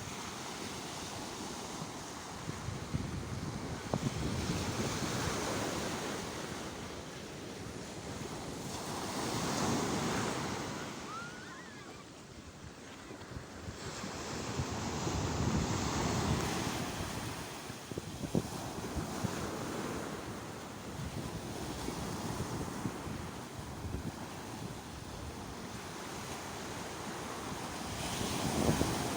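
Sea waves breaking and washing on the shore, the surf rising and falling in slow surges several seconds apart.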